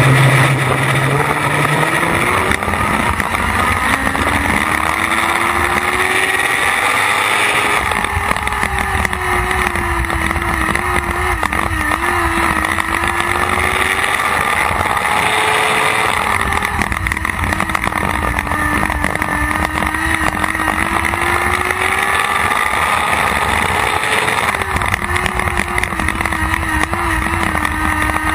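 Lightning sprint race car engine heard from on board at racing speed: its note climbs at the start, then rises and falls in a repeating cycle every several seconds as the car accelerates and lifts around the laps. Wind buffets the microphone throughout.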